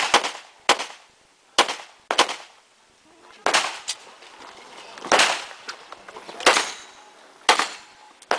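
Handgun shots fired singly during a timed pistol course of fire, about eight in all with irregular pauses of half a second to a second and a half between them, each shot trailing off in a short echo.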